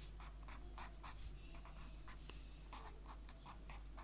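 A pen writing on lined notebook paper: faint, quick scratching strokes as letters are written out, several a second.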